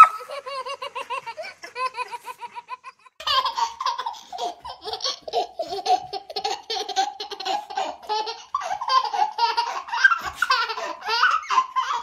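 A baby laughing in quick rhythmic bursts; after a short break about three seconds in, another baby laughs almost without pause in rapid pulses to the end.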